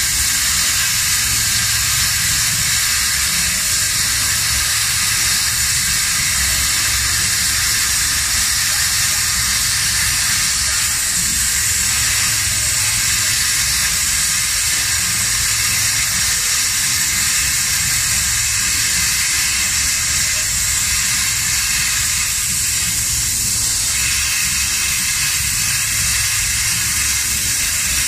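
Hand-held plasma torch cutting through 20 mm mild steel plate: a loud, steady hiss of the plasma arc and cutting-air jet, with a low rumble underneath.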